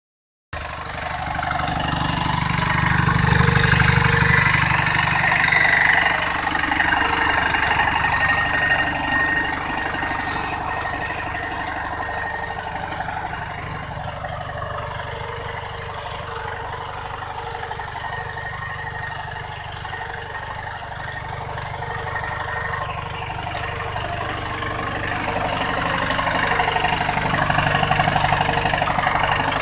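Captain mini tractor's diesel engine running steadily under load while it pulls a plough through the soil, growing louder and easing off now and then.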